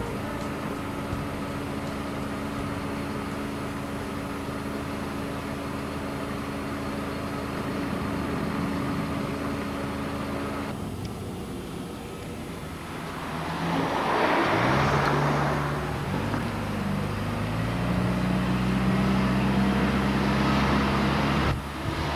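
Car engine running with road noise, heard from inside a moving car. About thirteen seconds in, a rush of noise swells and fades, and the engine note then rises in steps as the car accelerates.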